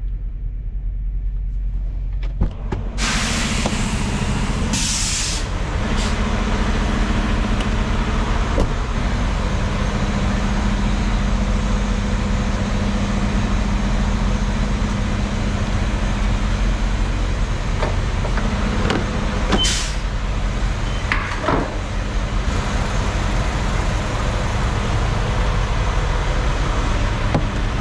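Semi-truck's diesel engine running steadily with road and cab noise, broken by a couple of short hisses of air, one about five seconds in and one about twenty seconds in.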